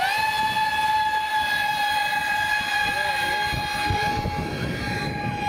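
Electric motor and fan of a radio-controlled model jet running flat out: a loud, steady high-pitched whine with overtones, held level in pitch. Wind buffets the microphone underneath.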